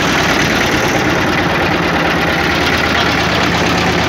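Engine of a crowded boat running steadily under way.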